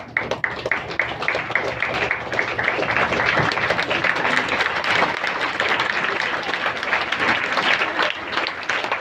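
Congregation clapping, starting as even rhythmic claps about four a second and building into sustained applause.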